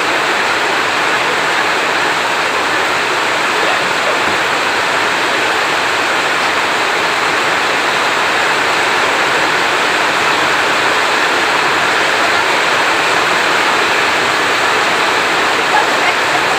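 Heavy rain falling steadily, a dense even hiss with no thunder in it.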